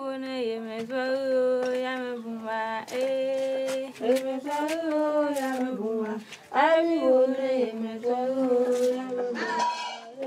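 A woman singing a slow song unaccompanied, holding long notes, with a few hand claps a few seconds in.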